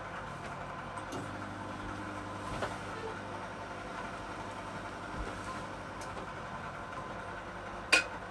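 Steady hum of a kitchen appliance, with a few light clicks of kitchenware being handled and one sharp knock near the end.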